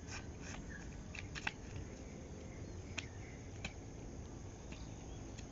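A few light, scattered taps and slaps of a child's flip-flops on asphalt as he hops on one foot, the loudest about one and a half seconds in, over a low steady background.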